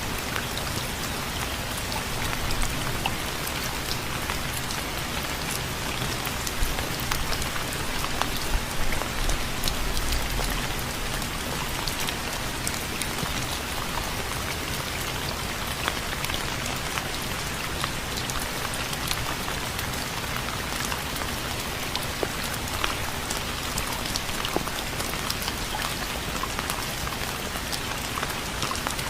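Steady rain falling on a surface, an even hiss with many separate drops ticking through it, a little heavier between about 2 and 11 seconds in.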